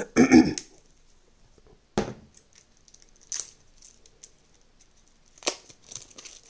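Game cards being handled and set down on a table: a few separate sharp taps and card slides, with soft rustling near the end. A short vocal sound comes right at the start.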